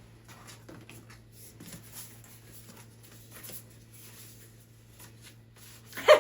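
Faint rustling and light ticks of oracle cards being handled and shuffled, with one brief louder sound right at the end.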